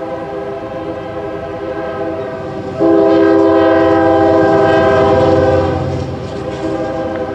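Norfolk Southern freight locomotive's air horn sounding a chord for the grade crossing, held throughout and much louder for about three seconds in the middle as the locomotive crosses, over the low rumble of the locomotive and railcars rolling past.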